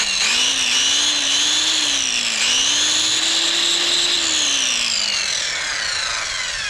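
Rusty corded circular saw running free in the air, its motor whine wavering in pitch, then spinning down with a steadily falling whine after the trigger is let go about four seconds in. The roadside-found saw still works.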